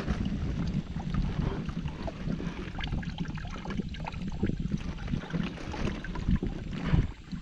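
Wind buffeting the microphone over water lapping at a plastic kayak, with small scattered knocks and clicks of handling on the boat.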